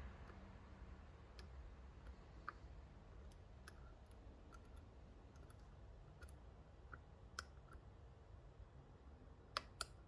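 Faint, scattered small clicks of a lock pick working the pins inside a Mul-T-Lock Classic pin-in-pin cylinder, with two sharper clicks close together near the end.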